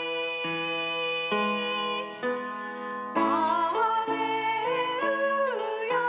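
A woman singing a slow song into a microphone, accompanied by strummed acoustic guitar, her voice growing louder about three seconds in.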